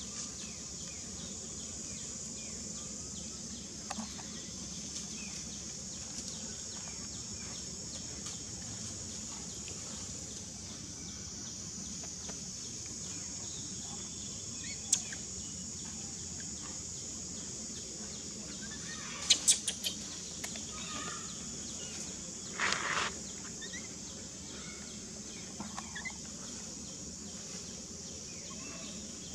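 Outdoor ambience: a steady high hiss with a few sharp clicks and short animal calls, the loudest about two-thirds of the way in.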